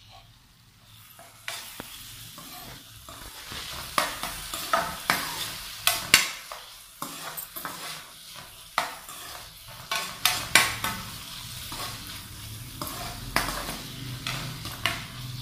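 A steel spoon stirring diced potatoes and onions frying in oil in a pan. After a quiet second and a half come repeated scraping and clinking strokes of the spoon against the pan, over a steady sizzle.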